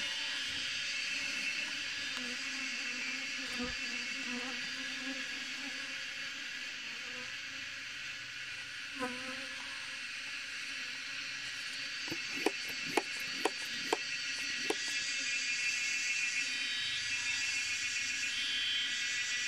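Honeybee swarm clustered on a branch, a steady dense buzz of many bees. About two-thirds of the way through, a quick run of five sharp clicks.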